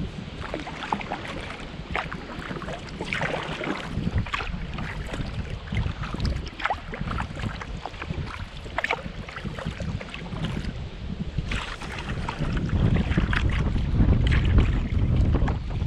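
Kayak paddle strokes splashing and dripping in the water every second or two. Wind rumbles on the microphone throughout and grows heavier in the last few seconds.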